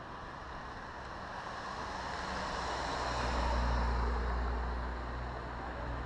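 A car passing close by. Its engine and tyre noise swells to a peak about three and a half seconds in, then eases off.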